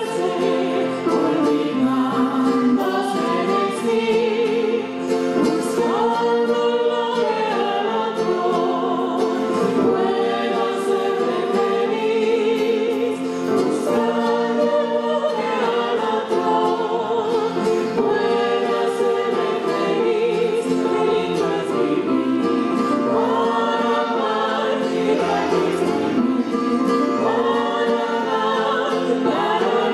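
Music: a choir of several voices singing a slow hymn-like song with instrumental accompaniment.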